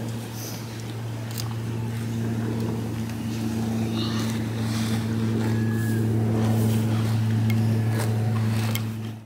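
A steady engine drone that grows slightly louder, then cuts off suddenly at the end.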